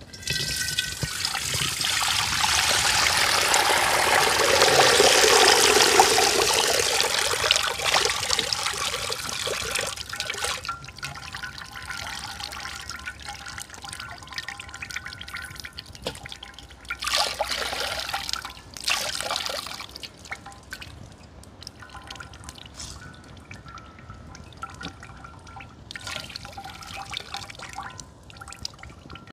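Coconut milk pouring and trickling into a pot as grated coconut is squeezed by hand. A steady pour for about the first ten seconds, then quieter trickles with a few brief splashes.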